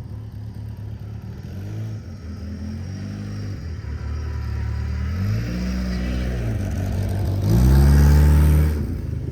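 1989 Ford Mustang Fox Body's 2.3-litre four-cylinder engine revving up and falling back several times, the hardest rev coming near the end before it drops back to a lower run.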